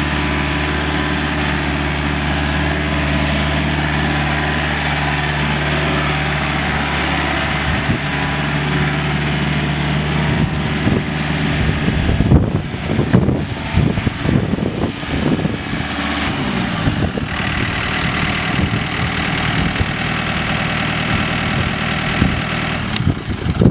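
John Deere 110 backhoe loader's diesel engine idling steadily. About halfway through comes a few seconds of uneven, louder noise with several knocks, after which the steady running resumes.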